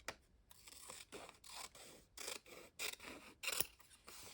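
Scissors cutting a sheet of catalogue paper in a series of short snips, about one every half second.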